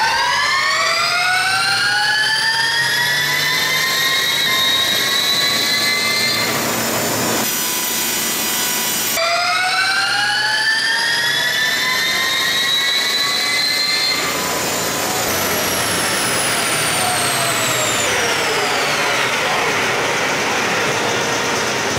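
Scalar SCR1 electric race car running on an eddy-current chassis dyno: a high electric-drive whine climbs in pitch as the wheels spin up the rollers, cuts out briefly about seven seconds in, climbs again, then winds down in pitch over the last several seconds as the car slows, over a steady rush of tyre and roller noise.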